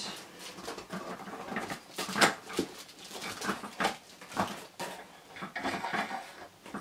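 Cardboard box and packaging rustling and knocking in irregular bursts as a lamp is handled and lifted out of it.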